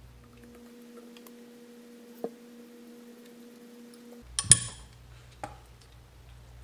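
Metal screwdriver set down on the bench with a sharp metallic clink that rings briefly, about halfway through, followed by a lighter click a second later. A faint steady hum stops just before the clink.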